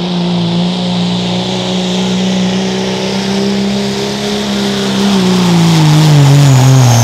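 Pro Street diesel pickup pulling the sled at full throttle, its engine held at steady high revs. Over the last two seconds the engine note drops as the truck loads down under the sled.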